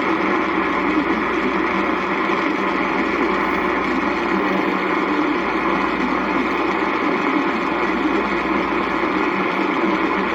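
Steady static hiss from a weather radio receiver tuned to a noisy signal, with a faint underlying hum.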